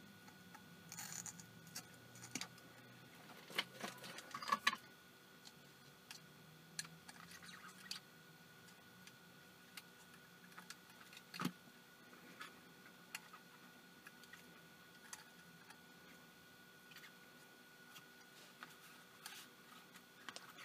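Faint, scattered small clicks and taps of hands working a soldering iron and thin wires against a plastic night vision monocular housing, busier in the first few seconds, over a faint steady hum.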